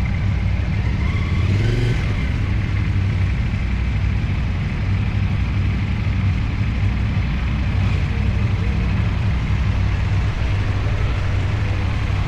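CFMoto 450SR motorcycle's parallel-twin engine running steadily on the move, with a short rise in revs about a second and a half in.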